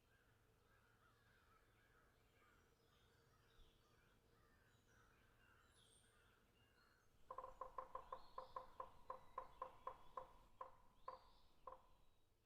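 Bird calls: faint high chirping, then about seven seconds in a fast run of short, clipped calls at about four to five a second for some four seconds, spacing out near the end.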